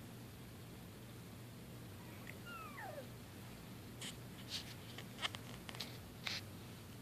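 A cat gives one short mew that falls in pitch about two and a half seconds in. From about four seconds in come several quick, faint scratchy scuffs of kittens' paws tussling on bedding.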